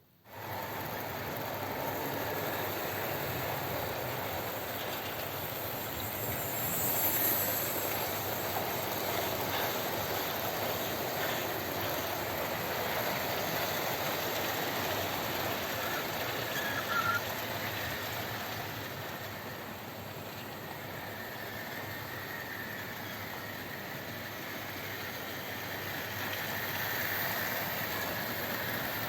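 Model trains running on the layout's track: a steady rolling and motor whirr of wheels over rail joints.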